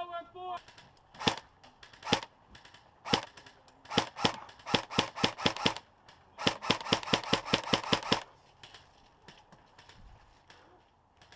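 Airsoft electric gun firing BBs: three single shots about a second apart, then a string of quick shots, then a faster burst of about six shots a second that stops about eight seconds in.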